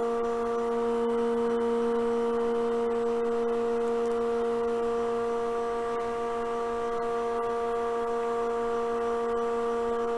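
Steady electric motor hum from woodshop machinery, a constant pitched drone with several overtones that does not change.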